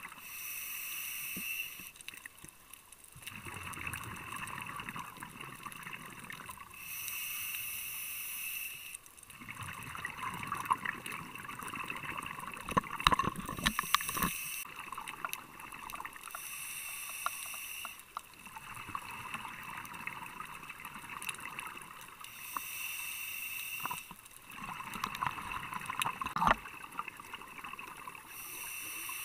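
A scuba diver breathing through a regulator, heard underwater: each breath in is a short hiss through the demand valve and each breath out a longer burst of bubbles, the cycle repeating about every six seconds. A few sharp knocks come through around the middle and near the end.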